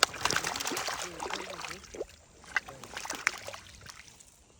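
Water splashing and sloshing, busiest in the first two seconds, then a few scattered knocks and drips.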